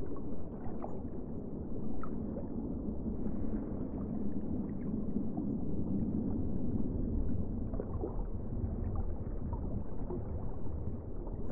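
Muffled underwater sound of shallow moving water heard through an action camera's waterproof housing: a steady low rumble with a few faint ticks and taps.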